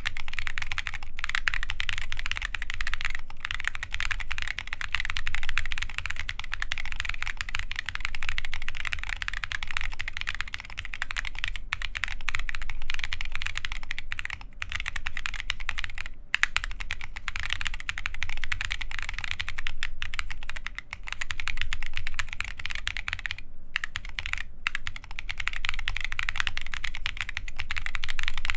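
Continuous fast typing on an Adélie mechanical keyboard with lubed Holy Boba tactile switches, carbon fiber plate and KAT Alpha keycaps: a dense, even stream of key clacks with a few brief pauses.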